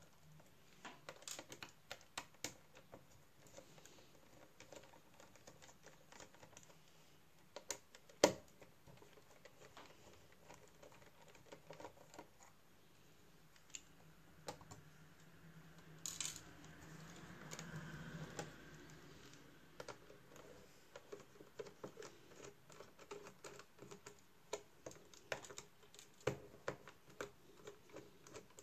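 Faint, scattered small clicks and taps of a screwdriver and fingers on a laptop's LCD panel, frame and hinges, with one sharper click about eight seconds in and a longer rubbing sound a little past the middle.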